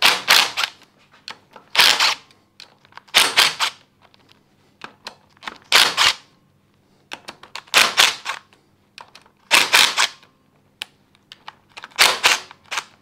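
Ratchet wrench clicking in short bursts of rapid clicks, about seven in all, roughly every two seconds, as bolts are undone to take a camshaft out of a scooter engine.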